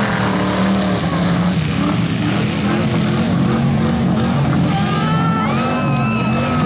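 Demolition derby car engines running and revving together, with voices calling out near the end.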